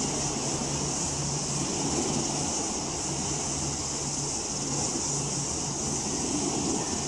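Low steady engine drone from boats under way on the harbour, with wind on the microphone and a steady high hiss.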